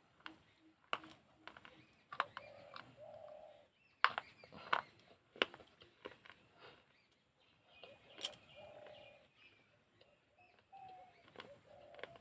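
Teeth biting and crunching broken shards of baked clay pot, sharp irregular cracks every second or so, the loudest about four and eight seconds in. A pigeon coos in the background several times between the cracks.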